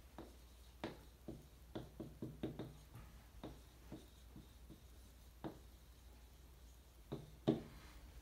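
Dry-erase marker writing on a whiteboard: a string of short, scratchy strokes and taps as the letters go down, with two louder taps near the end.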